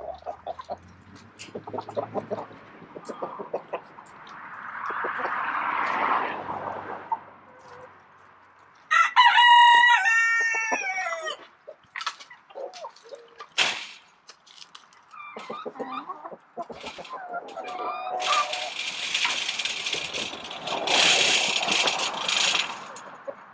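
A rooster crows once, about nine seconds in, the loudest sound here, among hens clucking and scattered knocks of wooden poles being handled. Near the end a long scraping noise starts as a wooden pole is pushed along the chain-link fence.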